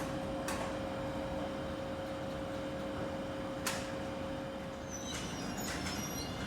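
Railway station ambience: a steady two-tone hum, typical of a train's equipment at the platform, over a wash of noise, with two sharp clicks. The hum fades out about five seconds in, and faint high-pitched squeaks follow.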